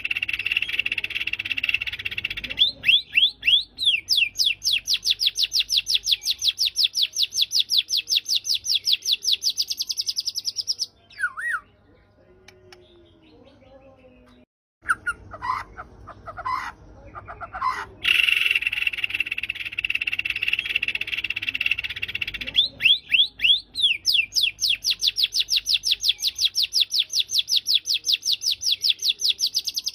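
White-rumped shama singing: a harsh buzzy rattle, then a long, fast run of repeated high notes lasting several seconds. After a short pause with a few brief whistles, the same rattle and rapid run come again about 18 seconds in.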